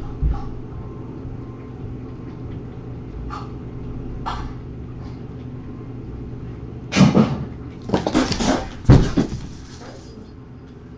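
Kittens hissing and growling in a sudden scuffle, in loud harsh bursts about seven seconds in and again for about a second and a half soon after, the defensive sound of a frightened, puffed-up kitten. A steady low hum runs underneath.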